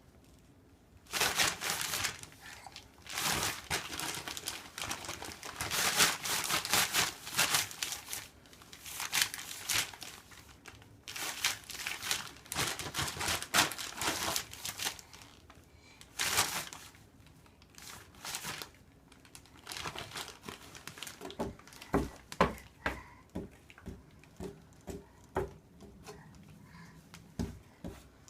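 Crumpling and crinkling in irregular bursts, as of crinkly material being handled, with a run of short sharp clicks in the last third.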